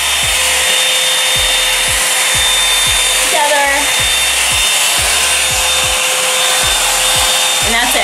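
Revlon One-Step Volumizer hot-air brush running steadily, a loud rush of air with a constant motor whine, as it is drawn through a section of hair. A regular low thump about twice a second sits underneath.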